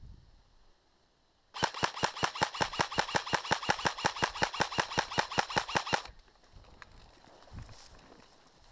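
Airsoft electric rifle firing one long full-auto burst, an even rattle of shots at about seven a second for some four and a half seconds, starting a second and a half in and cutting off suddenly.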